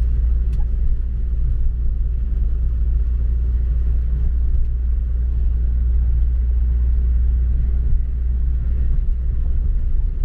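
Volkswagen Transporter T5 van driving on a rough road: a steady low rumble of engine and tyres, heard from inside the cabin.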